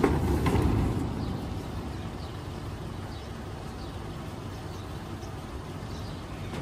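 Outdoor street background: a steady low rumble of distant traffic with a few faint, short bird chirps now and then, and a couple of light clicks in the first second.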